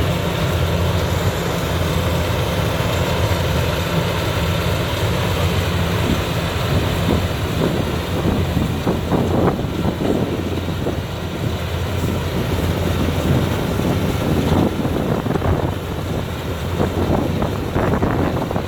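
Rice combine harvester running steadily, its engine a continuous low drone, with an irregular crackling rustle joining in from about seven seconds in.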